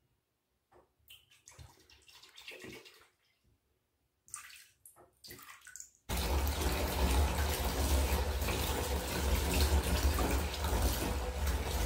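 Tap water running into a bathtub, starting suddenly about six seconds in and then running steadily at full flow. Before it there are only a few faint, scattered sounds.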